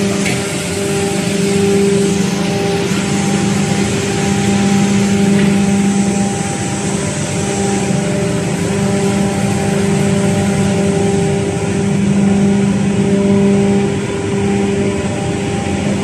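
Wood sawdust production line running: the hammer mill and its chip conveyor and cyclone fan make a steady, loud machine drone, a deep hum with a hiss of air and material over it.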